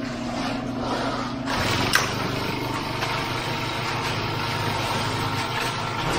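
Small gas engine of a vibrating concrete power screed running steadily as the screed is pulled across wet concrete. Its note shifts lower about a second and a half in, and a sharp click comes about two seconds in.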